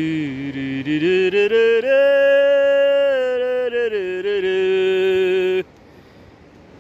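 Background music: a slow, chant-like vocal melody with long held notes, cutting off suddenly about five and a half seconds in, leaving only faint outdoor ambience.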